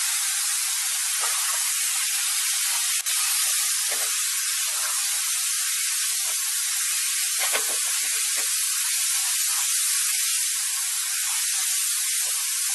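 Steady, even hiss with no pitch, mostly high, with a faint click about three seconds in.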